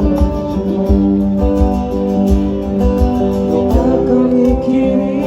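Live band music with no singing: strummed acoustic guitar over sustained chords, with a repeated low beat underneath.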